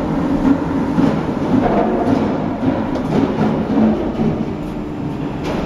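Steady machinery din from a hydraulic cask press running, a continuous hum with a few faint knocks.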